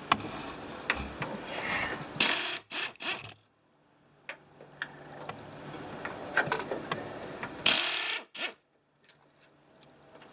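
Hand-tool work on a car door hinge: scattered sharp metallic clicks and ticks, with two short noisy bursts, one a little after two seconds in and one near eight seconds.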